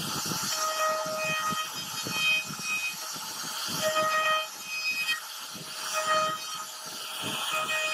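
CNC router spindle running as its bit carves a relief pattern into a wooden board: a steady cutting hiss with a pitched whine that comes and goes several times.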